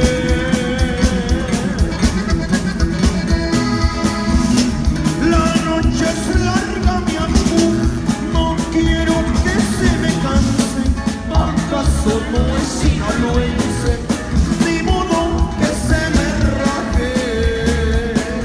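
Norteño song playing, with singing over a steady beat.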